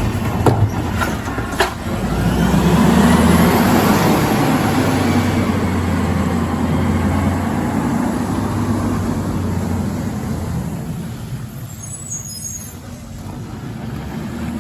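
Garbage truck (a ZR automated side loader) with a few sharp knocks in the first two seconds, then its engine running loudly, strongest about three seconds in and fading away over the following ten seconds, with a brief high squeal near the end.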